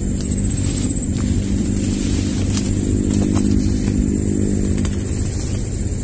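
A motor vehicle engine running steadily. It grows louder about halfway through and then eases off, like a vehicle passing nearby.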